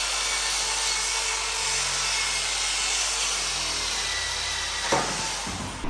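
Power tool running steadily on car body sheet metal, a steady high noise with a faint whine, cutting out about five and a half seconds in.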